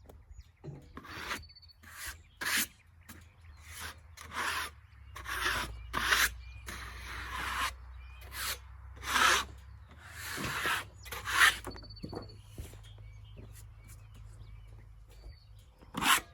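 A series of short, irregular scraping strokes against wood, about a dozen, with a sharper scrape near the end.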